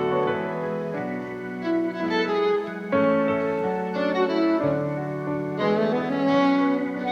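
Live band playing an instrumental passage between sung lines, with sustained melodic notes changing about once a second over a fuller accompaniment.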